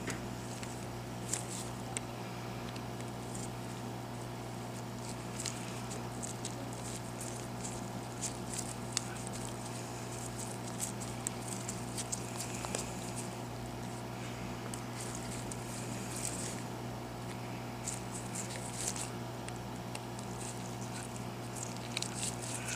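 Faint scattered metallic ticks and scratches of a small Phillips precision screwdriver working at the tiny side screws of an iPhone 6 display's metal frame, the bit struggling to grip the stubborn screws. Under it is the steady hum of a hot air rework station left running.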